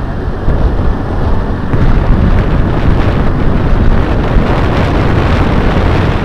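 Loud wind buffeting the microphone, with a deep rumble from a moving vehicle underneath.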